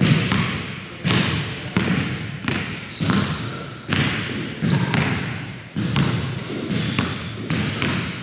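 Basketball being dribbled on a hardwood gym floor: a steady bounce a little more than once a second, each bounce echoing in the large hall.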